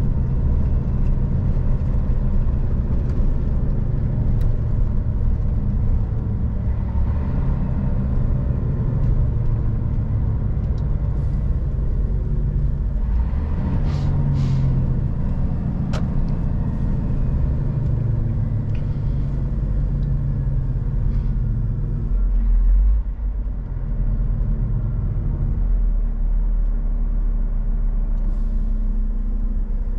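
Scania R440 truck's six-cylinder diesel engine running steadily on the move, a continuous low rumble, with a short hiss about halfway through and a shift in the engine note a few seconds later.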